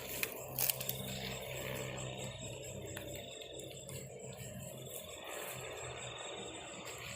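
Crickets chirping in long, fast-pulsed trills that stop and start again, over a low steady hum, with a few sharp clicks near the start.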